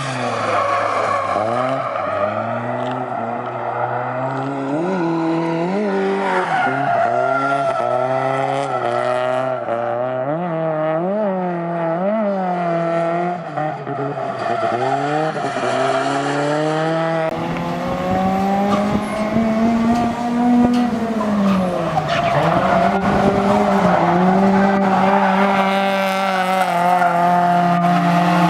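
The Toyota Corolla AE70's 4A-GE four-cylinder engine running under way. Its pitch rises and falls in a series of short swells as the throttle is worked. About two-thirds of the way in it settles into a steadier, higher drone.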